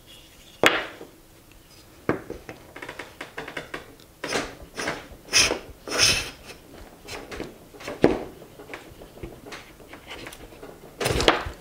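Cast-iron bench plane being pushed over a maple block in several rasping strokes, taking a heavy cut, with a sharp wooden knock about half a second in and more knocks and clunks as the plane is handled near the end.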